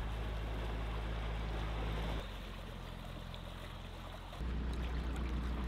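Narrowboat engine running steadily with a low hum, under rushing, churning water in the lock. The sound drops a couple of seconds in and comes back louder a little after four seconds.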